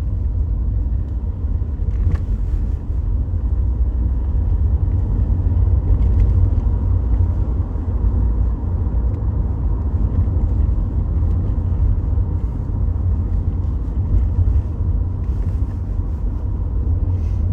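Car on the move: a steady, loud low rumble of road and engine noise.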